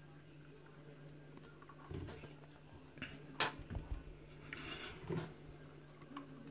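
Faint metallic clicks and taps of small tools working in the pin chambers of an opened lock cylinder while its pins and springs are taken out, with one sharper click about three and a half seconds in. A steady low hum runs underneath.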